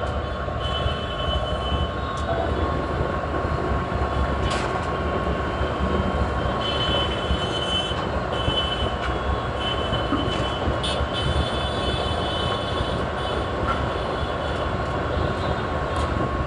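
Heavy machinery running steadily, with a constant whine and intermittent higher squeals over a dense mechanical rumble.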